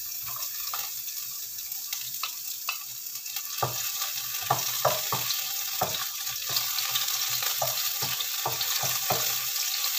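Oil sizzling in a nonstick frying pan where beef slices and chopped shallot and garlic are frying, with a wooden spatula scraping and knocking against the pan, the knocks coming more often in the second half.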